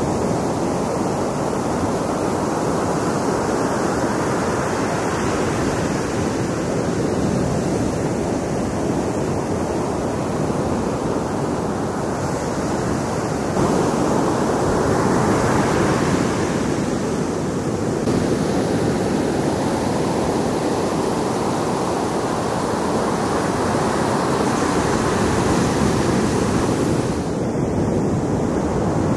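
Ocean surf breaking and washing up a sandy beach: a steady rushing wash that slowly swells and eases, changing abruptly about halfway through and again near the end.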